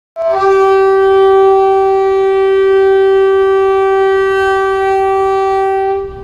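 One long, steady horn blast at a single pitch, lasting about six seconds. It opens with a brief higher note and stops shortly before speech begins.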